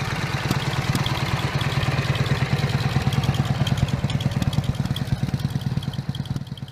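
Ural M67-36 motorcycle's flat-twin engine idling with an even beat, fading away near the end.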